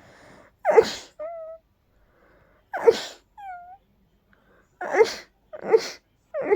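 A person sneezing in a rapid series of about five sneezes brought on by a dust allergy, with short in-breaths between them. The first two sneezes each trail off into a brief squeaky high note that dips and then levels off.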